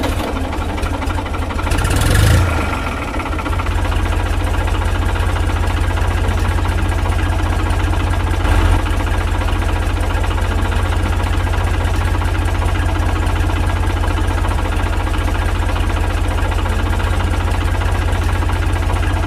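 Tractor engine sound effect running steadily with a fast, even low chug. It swells briefly about two seconds in.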